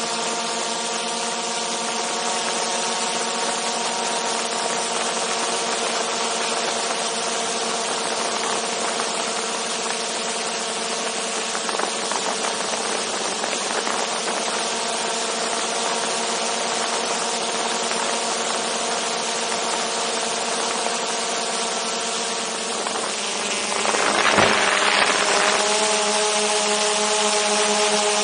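DJI Mavic 2 Zoom quadcopter's motors and propellers whining steadily in flight, heard from a camera slung just beneath them. About 24 seconds in, a brief rush of noise sweeps through and the whine settles at a slightly different pitch as the drone changes its motor speed.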